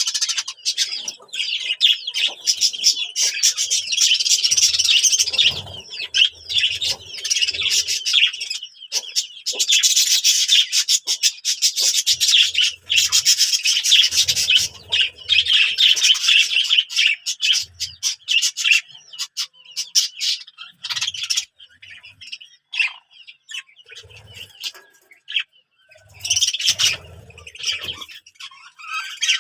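Many small birds chirping and chattering busily together in dense, rapid runs of calls. The calls thin out for several seconds past the middle, then pick up again near the end, with scattered low thumps among them.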